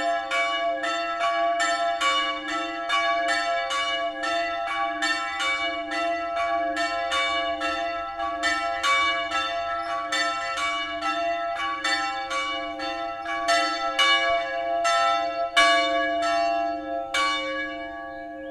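Two church bells, tuned to C-sharp and E and cast by Grassmayr, ringing together in full peal, strikes coming about two to three a second. The ringing stops near the end and the last stroke dies away.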